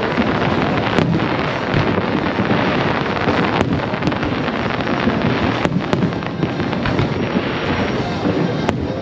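Aerial fireworks going off in a dense, continuous barrage, typical of a show's finale: an unbroken wash of crackling and bursts, with sharp reports standing out about five times.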